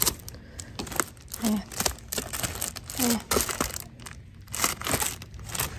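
Greeting cards in clear cellophane sleeves crinkling and rustling again and again as they are pulled from and pushed back into a display rack.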